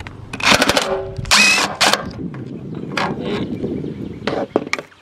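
Cordless drill-driver with a socket extension spinning out a 10 mm bolt. It comes in two loud bursts with a whine in the first two seconds, then runs lower for a few seconds with a few sharp clicks.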